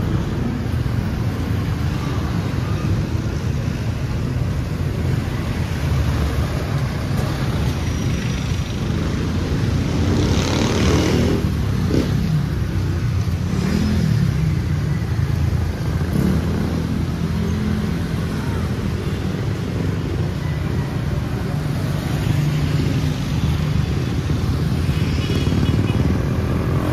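Street traffic: engines of motorcycles and cars running and passing by, over a steady low rumble, with one vehicle passing close and loud about ten seconds in.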